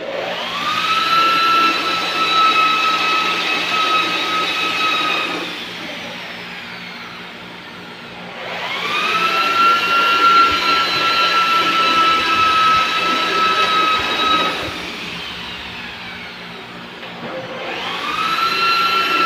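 Corded electric drill boring through galvanized iron sheet into steel angle bar, run in bursts of about five seconds: it spins up to a steady whine, holds, then winds down, twice, with a third run starting near the end.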